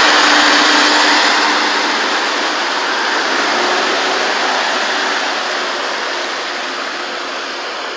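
Rushing floodwater churned by the wheels of a Case IH 185 tractor wading through it, with the tractor's diesel engine running underneath. The sound fades gradually as the tractor moves away.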